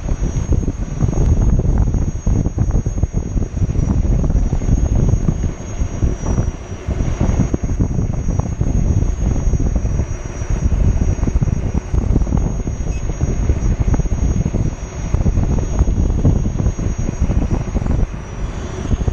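Wind buffeting the microphone of a camera riding low on a moving Gotway electric unicycle, a dense rumble with road noise from the tyre on asphalt. A thin steady high whine sits above it.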